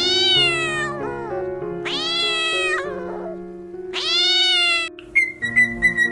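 A cat meowing three times, each meow long and drawn out, rising then falling in pitch, over soft background music. Near the end, short high chirps and clicks begin.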